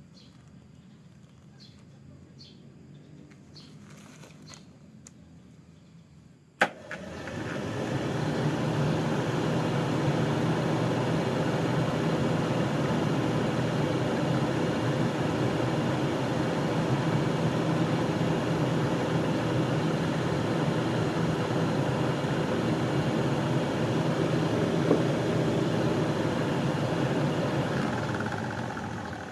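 BMW E36's 12-inch auxiliary electric cooling fan switched on with a sharp click, spinning up within about a second and then running steadily, its motor hum under an even rush of air, before dropping off near the end.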